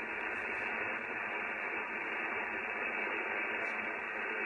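Steady hiss of band noise from an Icom IC-7300 HF transceiver's speaker, tuned to 27.385 MHz lower sideband on the CB band with no station transmitting. The hiss is even and stops sharply above about 3 kHz, the edge of the receiver's sideband filter.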